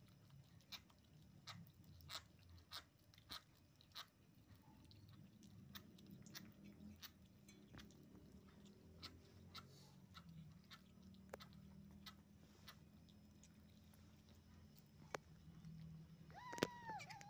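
Kittens chewing and smacking on sticky steamed shark meat, a faint run of irregular wet clicks. Near the end a kitten gives a short high meow that falls off at the end.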